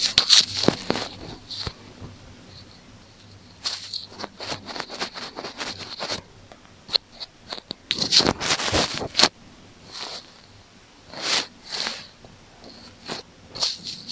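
Close-miked scratching and rubbing on an earphone, ear-cleaning style, in irregular bursts a second or two long with short pauses between them.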